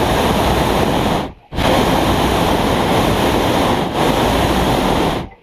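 Hot-air balloon's propane burner firing, a loud steady rush that cuts out for a moment about a second and a half in, then fires again until it is shut off sharply near the end.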